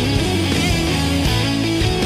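Heavy rock music: distorted electric guitars with bass and drums, playing without vocals.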